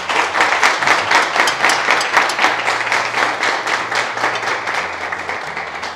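Audience applauding: many hands clapping together, starting suddenly and easing off slightly near the end.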